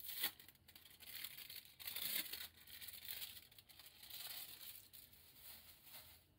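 Thin plastic film around a slice of melting cheese being peeled open and crinkled, in several soft rustling bursts.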